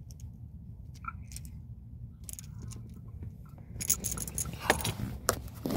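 Small plastic toy pieces and packaging being handled: light clicks at first, then a busier run of clicking and rattling about four seconds in, close to the microphone. A steady low hum of the car sits underneath.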